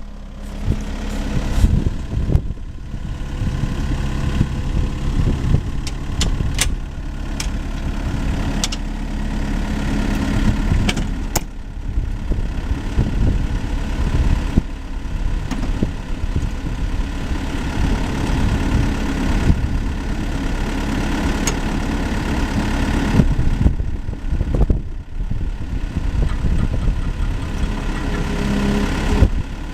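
2013 Kubota SVL75 skid steer's diesel engine running steadily, with a few sharp knocks scattered through the sound.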